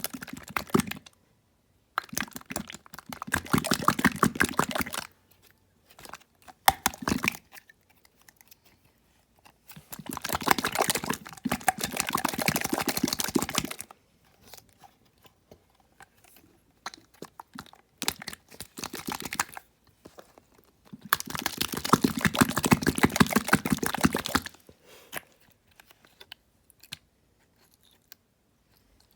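Close crunching, in three bouts of about three seconds each, with scattered sharp clicks between them.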